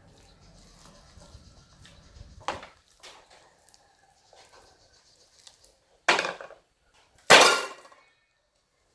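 Kitchenware being knocked and set down during cooking: three separate clattering knocks spaced a few seconds apart, the last one the loudest and ringing on for about half a second.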